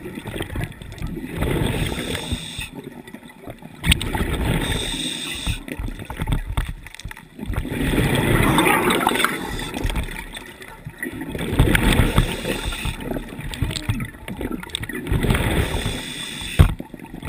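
Scuba diver breathing through a regulator, heard underwater: exhaled air bubbling out in gurgling bursts every few seconds, with quieter stretches between breaths.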